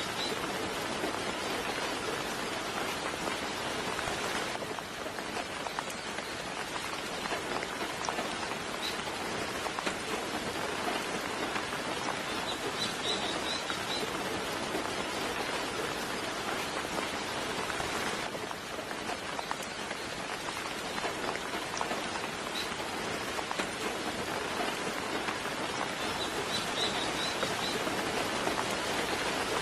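Soft, steady rainfall, with a bird giving a short burst of quick high chirps three times, about every thirteen seconds.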